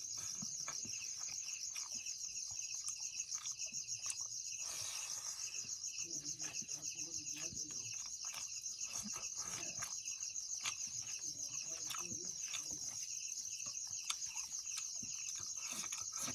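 Steady, high-pitched insect chorus, pulsing rapidly without a break, with scattered light clicks.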